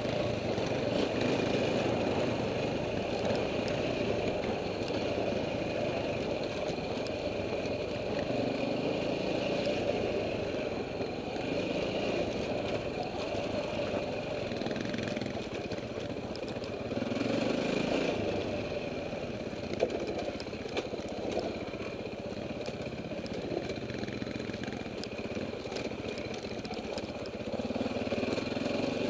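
KTM enduro dirt bike engine running as the bike rides down a rocky dirt trail, heard from the rider's helmet, its note steady with a few brief swells in revs.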